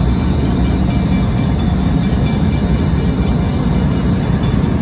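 Diesel locomotive engine rumbling low and steady as it backs up, with a grade-crossing bell striking rapidly and evenly above it.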